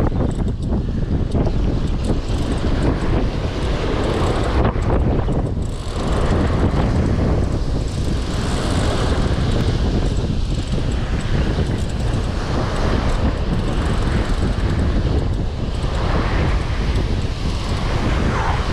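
Wind buffeting the microphone over surf breaking on the rocks: a loud, steady rush of noise.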